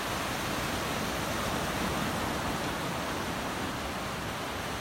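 Surf washing onto the beach: a steady, even wash of noise that swells slightly about two seconds in.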